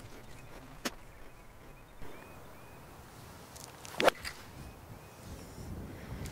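A pitching wedge striking a golf ball out of a fairway bunker's sand: one sharp crack about four seconds in, the loudest sound. A fainter click comes about a second in.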